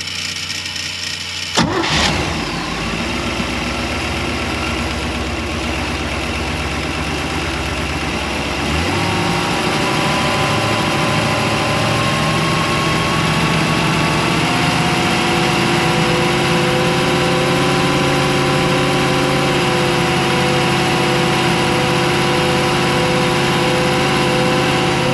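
Freshly built 350 cubic-inch Chevy small-block V8 marine inboard engine running on its first start, with a sharp crack about a second and a half in. About nine seconds in it picks up speed and then holds steady at the raised speed, as for a 2000 RPM break-in run.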